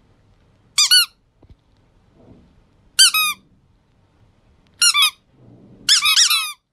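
Short high-pitched toy squeaks, each a quick slightly falling squeal, sounding four times with the last a rapid double; nothing else is heard in between.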